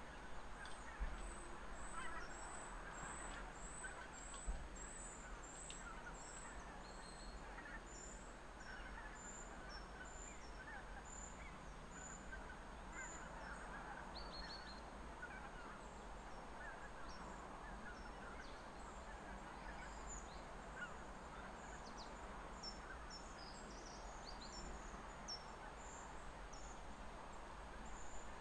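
A distant flock of waterfowl calling all at once in a steady, faint chatter. Thin high chirps run over it, evenly about twice a second for the first several seconds, then more scattered.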